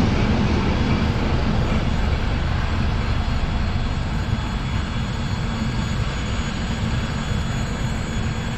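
Three ChME3 shunting diesel locomotives coupled together and moving away, their diesel engines a steady low rumble that slowly fades as they recede.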